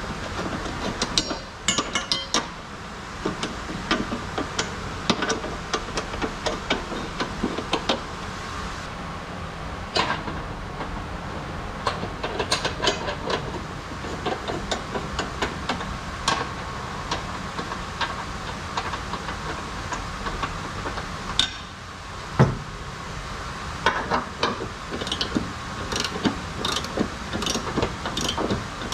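Hand tools clicking and knocking on metal in irregular runs during suspension work under a car, over a steady background hum.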